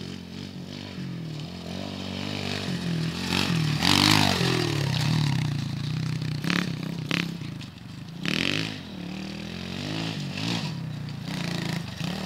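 Pit bike engine revving up and down as it is ridden past, loudest about four seconds in and rising again a little past eight seconds. A few brief clattery noises come around six to seven seconds.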